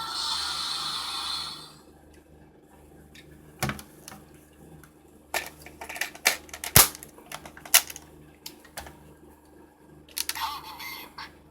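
Electronic sound effect from a modified Kamen Rider lock seed toy, cutting off about two seconds in, followed by scattered sharp plastic clicks and snaps as the toy is handled, with a brief warbling electronic sound near the end.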